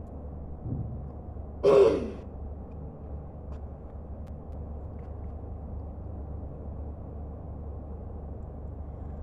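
A man gives one short, loud cough, with a falling voiced edge, about two seconds in, over a steady low hum.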